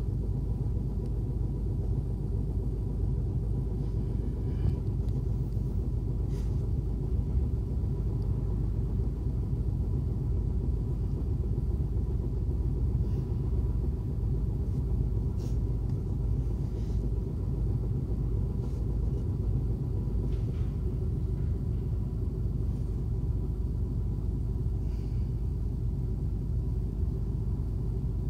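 Low steady rumble of a city bus's engine and running gear heard from inside the passenger cabin, with a few faint rattles and clicks now and then.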